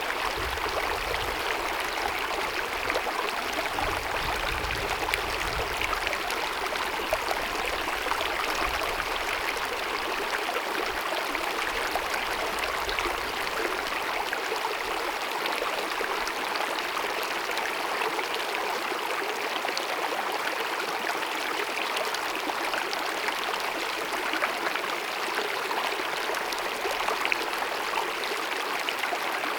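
Small glacier-fed mountain meadow stream cascading over rocks: a steady, even rush of running water.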